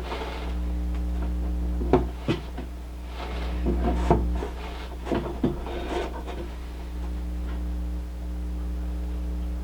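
A steady low electrical hum, with a few sharp wooden knocks and rubbing noises from objects being handled between about two and six seconds in.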